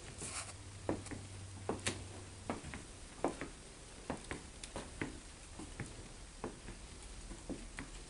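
Footsteps on wooden floorboards: irregular light taps, about two or three a second.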